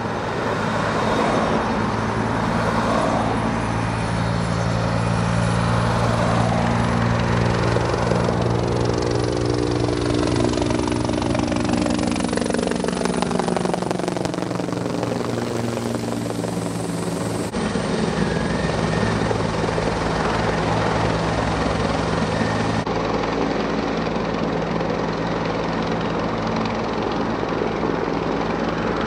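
Fire-rescue helicopter's rotor and turbine running loud and steady. In the middle the pitch slides down as the helicopter passes overhead, and the sound changes abruptly twice.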